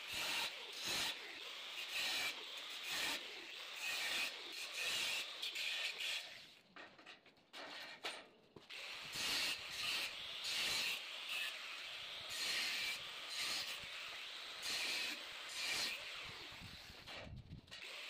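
Handheld angle grinder's cut-off disc cutting V-notches into the steel side rail of a ladder-type cable tray, the grinding swelling about once a second as the disc bites into the metal. The cutting breaks off briefly about seven seconds in, then resumes.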